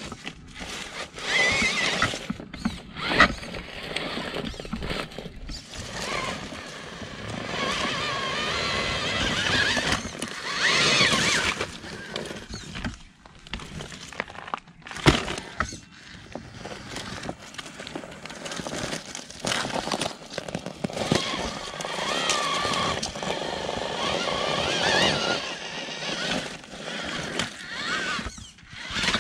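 Small electric RC rock crawler's motor and gears whining in repeated spells, rising and falling in pitch as it is driven at a rock ledge it cannot get over. Sharp knocks of wheels and chassis against rock, the loudest about three and fifteen seconds in.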